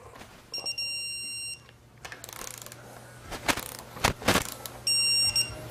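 Digital torque wrench set to 108, beeping its rapid, high-pitched target-torque alert for about a second, then again near the end, as each valve body bolt reaches torque. A few sharp clicks of the wrench and socket come in between.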